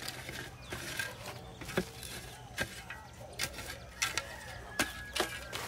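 Short-handled shovel chopping and scraping into loose dry soil, a series of irregular strokes about one every half-second to second, as soil is worked around the base of a newly planted sapling. Birds call faintly in the background.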